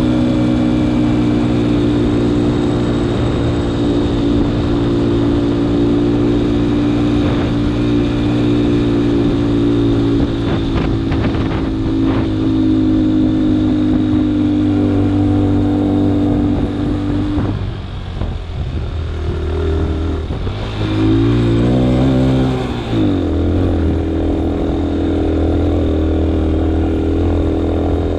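A vehicle engine running steadily under load on a rough dirt track, with a few brief knocks around ten seconds in. About seventeen seconds in the throttle eases off, then the engine revs up and drops back before settling to a lower steady note.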